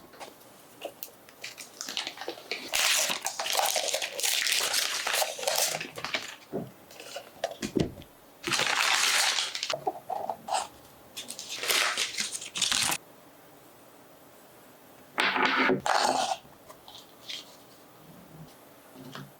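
Mac mini packaging being opened by hand: repeated bursts of paper and cardboard rustling and tearing, with a few light knocks and quiet pauses between.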